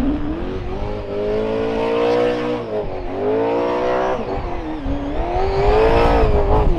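Sprint-car V8 engine in a Nissan S13 drift car revving hard while drifting, its pitch climbing and dropping three times as the throttle is worked.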